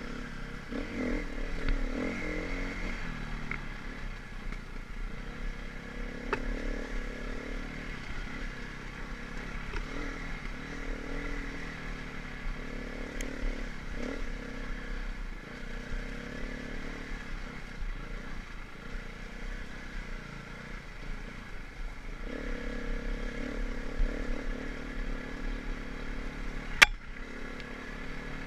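Off-road dirt bike engine running under changing throttle, its pitch rising and falling as it is ridden over rough ground. One sharp knock near the end.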